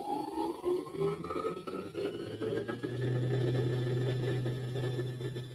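Brother PE800 embroidery machine winding a bobbin: its motor speeds up with a rising whine over the first couple of seconds, then settles into a steady hum.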